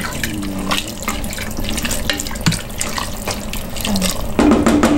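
A wooden spatula stirring wet chili in an enamel pot after stock has been added: liquid sloshing and squelching, with frequent small knocks and scrapes of the spatula against the pot.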